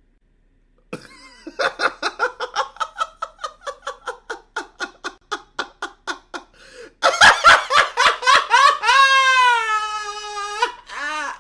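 A person laughing: a long run of quick, even giggles at about four a second, breaking into louder laughter about seven seconds in and ending in one long held high note.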